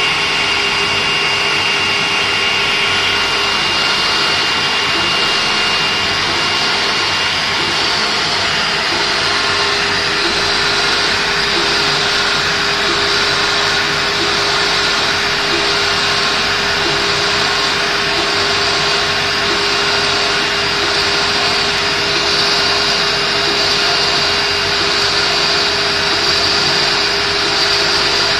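IECHO digital flatbed knife cutter running, its cutting head working through a clear plastic sheet: a loud, steady whirring noise with a constant hum underneath, typical of the machine's vacuum hold-down blower.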